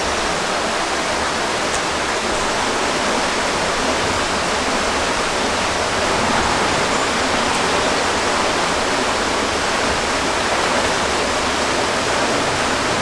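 Steady rushing of flowing water, an even wash of noise that does not change.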